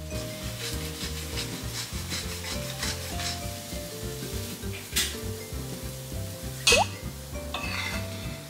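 Silicone spatula stirring and scraping scrambled egg and tomato in a square cast-iron pan, the eggs sizzling, with a quick run of strokes in the first few seconds. About two-thirds through comes one sharp, loud scrape with a short rising squeak. Background music plays under it.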